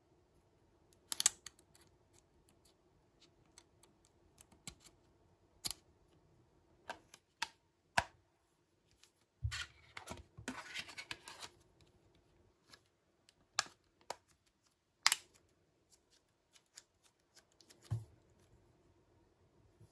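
Handling of a Samsung Galaxy Ace 2 smartphone: scattered sharp clicks and taps, with a short scraping rustle about halfway through.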